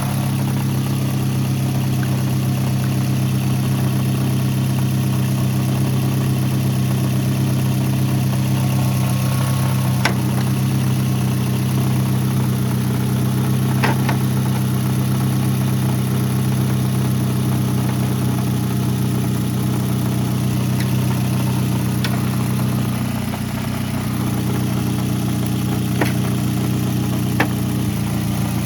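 Car engine idling steadily, with a few faint light clicks over it.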